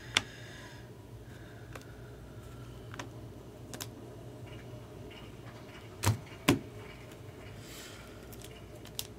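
Baseball trading cards and their packs being handled on a table: scattered sharp clicks and taps, the loudest two in quick succession about six seconds in, over a low steady hum.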